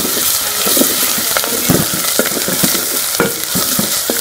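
Onions and ginger-garlic paste sizzling as they fry in ghee in a metal pot, with a wooden spoon stirring through them in irregular strokes.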